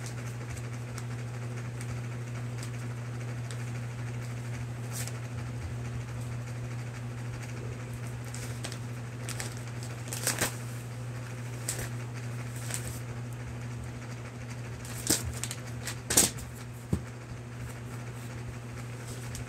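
A flat white package handled and worked open by hand, giving a few short crinkles and scrapes, the loudest about three-quarters of the way through, over a steady low hum.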